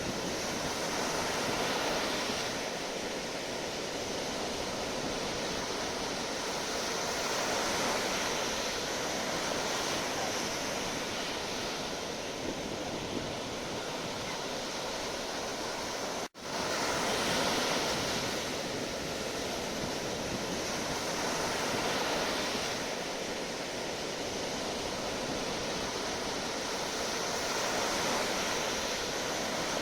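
Sea waves breaking and washing on the shore in continuous surf, swelling and easing every few seconds. There is a brief dropout to silence about halfway through.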